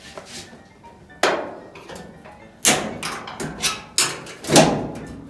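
Metal scraper knocking and clanking against the dryer's sheet-metal top panel while prying at the spring clips in the seam: a string of sharp, ringing metallic knocks, the loudest near the end.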